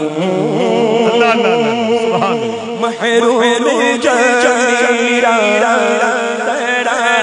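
A naat sung unaccompanied by a male voice, in long held, wavering, ornamented lines over a steady low hum.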